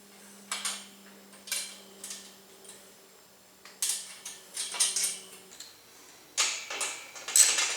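Metal parts of a firewood rack's tube frame clinking and clanking as they are handled and bolted together, a series of sharp separate clinks that come faster and louder near the end.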